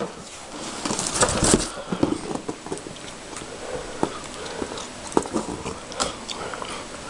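A cardboard printer box being handled and turned, with irregular knocks and rustles that are loudest about a second in.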